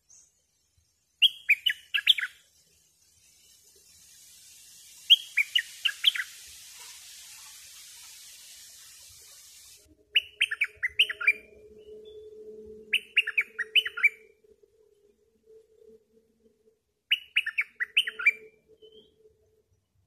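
Bulbul singing: five short bursts of quick notes, each about a second long, a few seconds apart. A steady hiss runs under the second burst and stops about halfway through, after which a faint low hum is heard.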